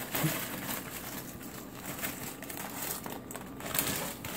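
Crinkly potato chip bag rustling as sea salt chips are shaken out of it onto a paper plate, in irregular crackles with a louder rustle near the end.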